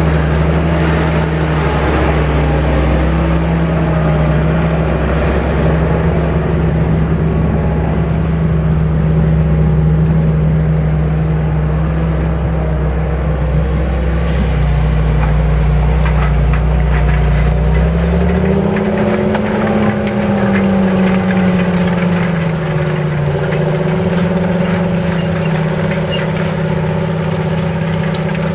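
John Deere 8430 tractor's diesel engine running steadily under load while pulling a Köckerling Allrounder 1200 cultivator. About two-thirds of the way through, the deep rumble drops away and the engine note rises briefly, then settles.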